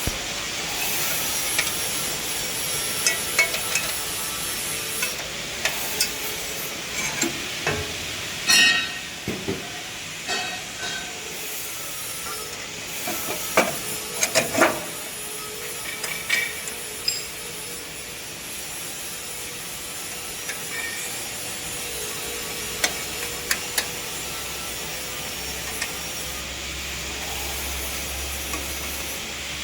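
Scattered metallic knocks and clinks of hand tools on a machine part over a steady workshop hiss, with a brief cluster of louder knocks near the middle.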